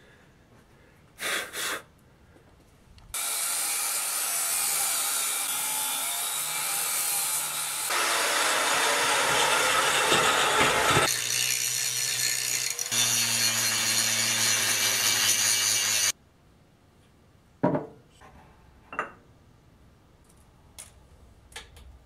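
Angle grinder running hard against steel for about thirteen seconds, its tone changing abruptly a few times where the footage is cut. Before and after it there are only a few light metal knocks and clinks.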